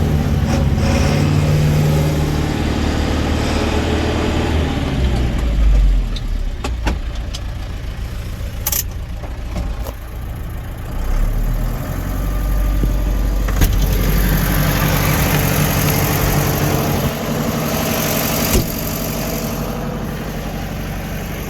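Case 995XL tractor's turbocharged diesel engine running while the tractor is driven and manoeuvred, its note rising and falling with the throttle. A few sharp knocks sound over it.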